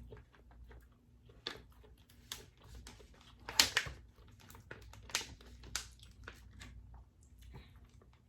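Close-miked eating sounds of king crab legs: a run of sharp crackling clicks as the shell is cracked and picked, loudest about three and a half seconds in and again around five seconds.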